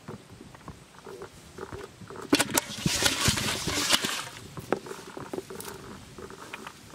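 Live fish flapping and knocking against a metal basin holding a little water, with scattered taps, then a louder burst of splashing and sharp slaps about two seconds in that lasts roughly two seconds before settling back to lighter taps.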